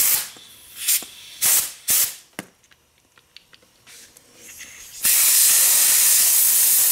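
Compressed-air blow gun hissing as it blows air into a Nissin rear brake master cylinder to clear a blockage in its tiny port: four short blasts in the first two seconds, a few light clicks, then one steady blast of nearly two seconds starting about five seconds in.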